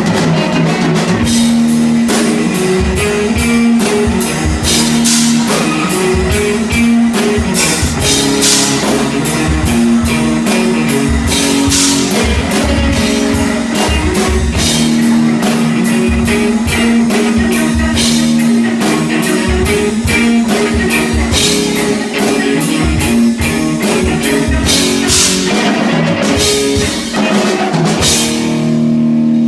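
Live rock band playing loudly, guitar over a drum kit, in a rough amateur recording with bad sound.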